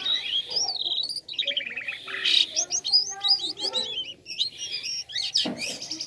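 Caged white-shouldered starling (jalak kapas) singing hard, a fast, varied, toy-like run of chirps, whistled glides and rapid trills with hardly a break.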